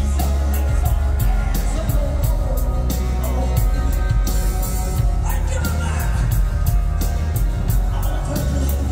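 Rock band playing live at full volume: drums keeping a steady beat under heavy bass and electric guitar.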